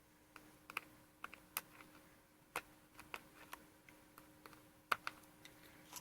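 Faint, irregular small clicks and taps of a screwdriver and small metal parts on a MacBook Pro's open underside while the hard drive is being freed, over a faint steady hum.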